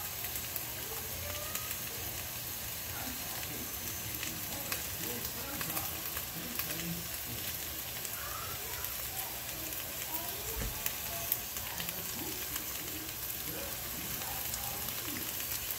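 Diced russet potatoes frying in canola oil in a nonstick pot: a steady sizzle with many fine crackles as they cook down toward brown and crispy.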